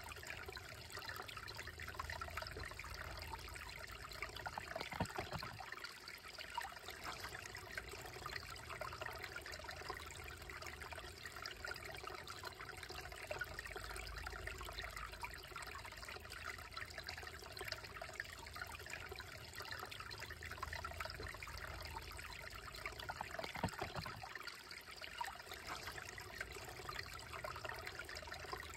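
Shallow, slow-moving creek trickling and babbling over stones and around rocks: a steady, close-up water sound. Two brief low thuds stand out, one about five seconds in and another about twenty seconds later.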